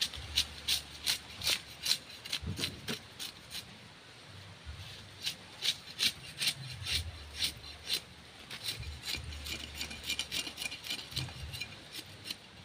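A broad cleaver-like knife scraping the scales off a large barracuda, in repeated short rasping strokes. The strokes come about two a second at first, pause briefly, then come faster and closer together.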